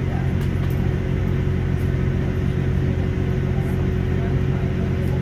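Steady drone of a Class 166 diesel multiple unit heard from inside the carriage: a constant low engine hum with a steady higher tone over it, not rising or falling.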